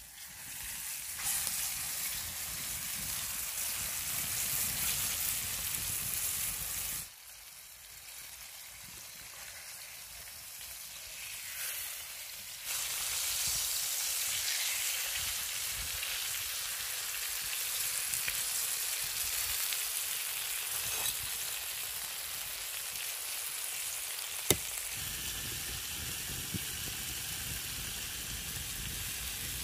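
Food sizzling and frying in a hot pan: a continuous hiss that drops and rises in sudden steps a few times, with a single sharp tap about 24 seconds in.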